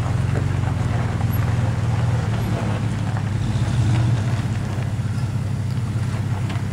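Off-road vehicle engines at low revs, a steady low drone, during crawling-speed maneuvering on a loose gravel mountain track.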